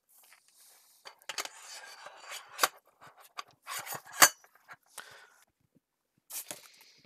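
Lengths of black anodised 2020 aluminium extrusion clinking and knocking against each other as they are set down and stacked, with scattered light clicks and a couple of sharper metallic knocks.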